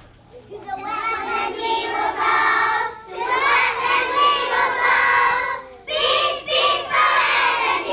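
A group of young children singing a song together, in long phrases with short breaks about three and six seconds in.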